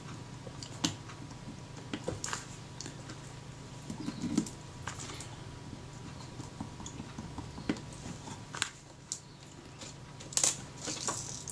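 Scattered light metallic clicks and taps of a small screwdriver and parts on the top plate of a Kodak Retina IIIc camera as the film advance lever is screwed back on, over a low steady hum.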